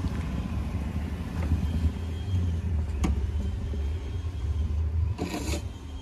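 A snowed-in SUV's engine idling with a steady low rumble. A single click about three seconds in, and a brief rush of noise near the end.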